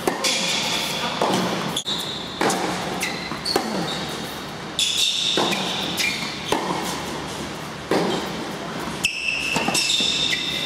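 Tennis rally on an indoor hard court: rackets strike the ball and the ball bounces, about one hit or bounce every second, each one echoing around the hall.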